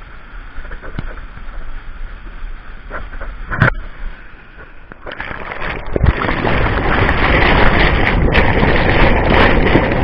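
Waterfall water rushing and churning over rocks, a steady roar of white noise with a single knock about three and a half seconds in. From about five seconds the rush grows much louder, the foaming water close to the microphone.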